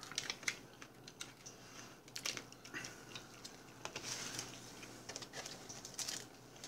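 Faint scattered clicks and crinkling of condiment packets and a small plastic dipping-sauce cup being handled and opened.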